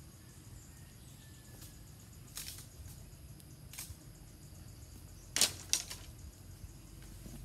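Dry bamboo cracking: a few short, sharp cracks, with the loudest two close together about two-thirds of the way through.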